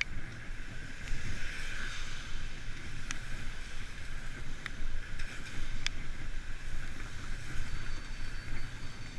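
Wind rumbling on the microphone of a moving delivery bike, over a steady hiss of wet road, with a few sharp clicks.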